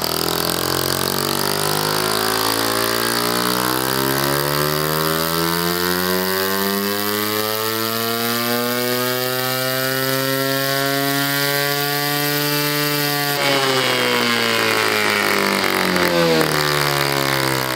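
Homemade single-cylinder four-stroke glow model engine with a one-valve rotary-valve cylinder head, running at high revs on a dyno test bench during a power run. Its pitch climbs slowly for about thirteen seconds, then the sound turns harsher and the pitch falls away toward the end.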